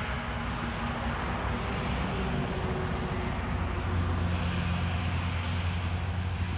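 Steady low motor hum with a rushing noise over it, its lowest tone growing stronger about four seconds in.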